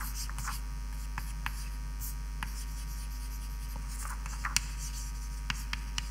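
Steady low electrical hum, with scattered light taps and scratches of writing; the sharpest tap comes about four and a half seconds in.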